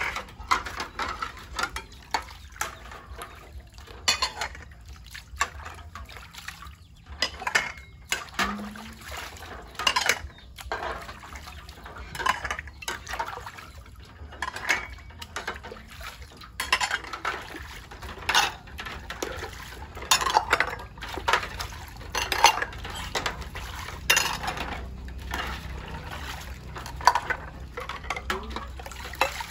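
Irregular clinking and clattering of dishes and metal utensils, with some splashing water.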